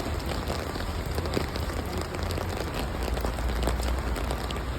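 Steady rain falling on hard surfaces, a dense even patter of drops over a low rumble.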